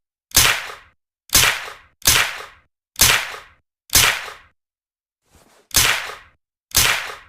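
Suppressed Uzi submachine gun shot sound effect: about seven single sharp cracks, roughly one a second, each dying away within half a second, with a faint extra crack near the middle.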